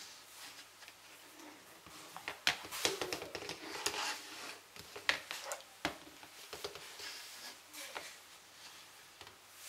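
Gakken New Block plastic toy pieces clicking, tapping and scraping against each other and the hard floor as a hand folds and turns a model, a busy run of small sharp clicks in the middle.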